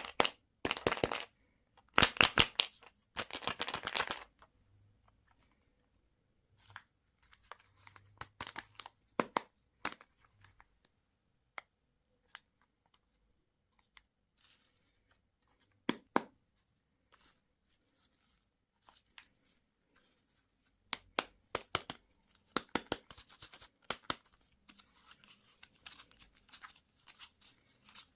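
Plastic candy and toy wrappers being torn open and crinkled by hand, in short bursts: three loud rips in the first few seconds, then scattered crackles and clicks, and another run of tearing and crinkling near the end.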